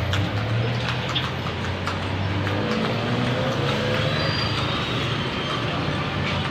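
Street traffic noise, with a vehicle engine running steadily close by as a low hum.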